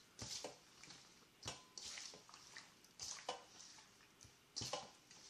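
Hands squishing and turning raw chicken wings in a wet marinade in a stainless steel bowl, a faint wet squelch every second or so.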